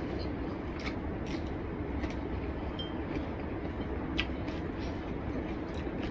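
Fingers mixing rice with spinach curry on a ceramic plate: faint squishing and a few light clicks, over a steady low hum.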